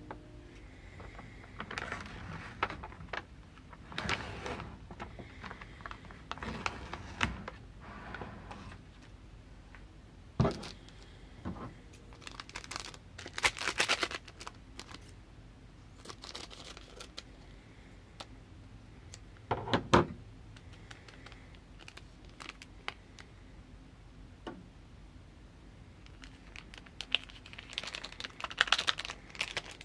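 Packaging crinkling and tearing: the paper lid peeled off a plastic microwave noodle tray and foil seasoning packets handled, with a few sharper knocks. Near the end a foil seasoning packet is torn open.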